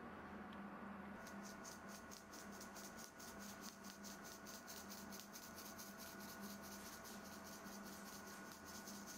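Sieve tapped in quick, soft, even strokes, about five a second, shaking powdered sugar over muffins, over a faint steady hum.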